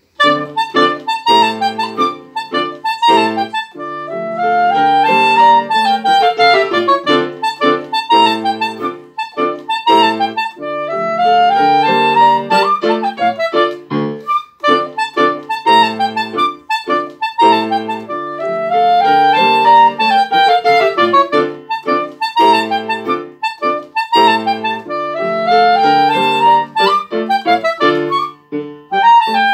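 Soprano saxophone playing a melody with piano accompaniment, the sax line climbing and falling in several phrases over the piano's chords.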